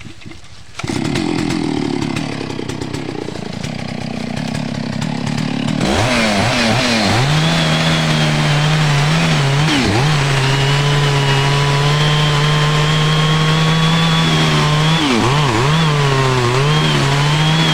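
Stihl MS660 Magnum two-stroke chainsaw starting up about a second in and idling, then opened to full throttle around six seconds in and cutting into the trunk of a tree, its engine pitch dipping briefly a few times as the chain loads in the wood.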